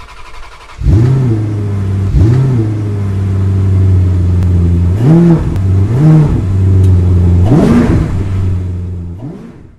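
Car engine blipped five times from a steady idle, each rev rising and falling quickly in pitch, the last one higher; the sound fades out near the end.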